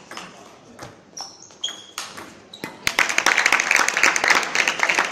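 Table tennis rally: the celluloid ball clicking off bats and table at irregular intervals, with a few short high squeaks. About three seconds in, loud clapping and applause breaks out as the point ends.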